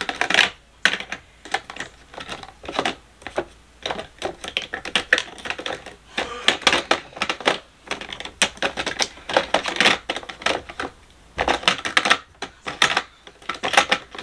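Small plastic makeup tubes and containers clicking and clattering against one another and a plastic drawer basket as they are picked up and set in by hand, in irregular clicks with a few short busy flurries.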